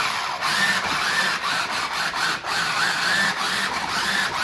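Electric drive motors and gearboxes of a New Bright 1:10 RC monster truck whining, the pitch rising and falling about twice a second as it is driven back and forth, its spinning tyres scrubbing on the hardwood floor. The truck lies on its back and is being rocked to flip itself over, its rollover recovery.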